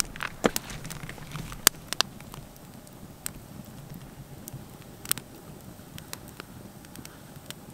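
Small wood campfire crackling, with sharp, irregularly spaced pops over a faint hiss, the loudest in the first two seconds.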